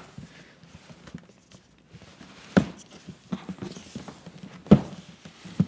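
A large rigid cardboard box being slid out of its cardboard sleeve and handled on a table: quiet scraping and rustling with three sharp knocks, the loudest a little after the middle.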